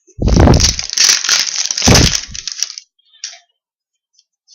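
A foil trading-card pack wrapper being torn open and crumpled close to the microphone: dense, loud crinkling for about two and a half seconds, with two heavy handling bumps, one near the start and one about two seconds in.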